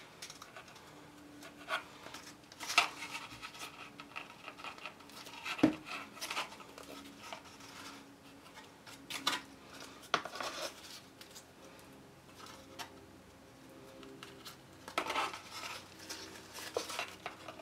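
Cut cardstock pieces of a paper gift box being handled, folded and pressed while small tabs are glued down: light scattered rustling, scraping and tapping, with one sharper tap a little before six seconds in.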